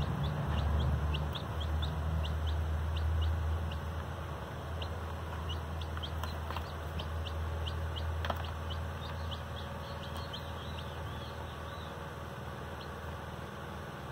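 Several baby chicks peeping: short, high, falling cheeps, about two a second, over a low steady rumble, with one sharp click about eight seconds in.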